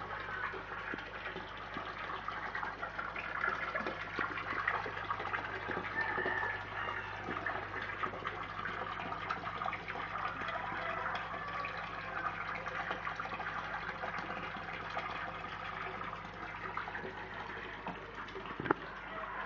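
Water splashing and bubbling steadily at the surface of a koi fry tank, with a low steady hum beneath. A single sharp knock near the end.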